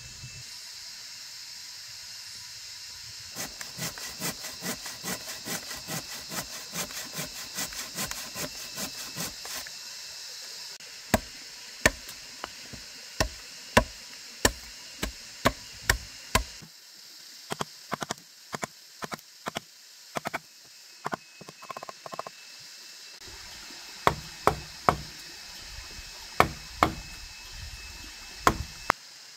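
Repeated blows of a tool on wood. First comes a run of quick light strikes, about four a second. Then come heavier single blows about one and a half a second, in three bursts with short pauses between.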